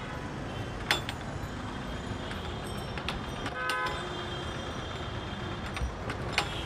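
Steady street traffic noise with a vehicle horn honking briefly about halfway through, and a few sharp knocks.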